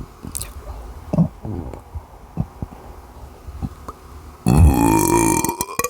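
Small clicking gulps of air being swallowed, then about four and a half seconds in a loud, long on-command burp lasting over a second, its pitch rising slightly toward the end.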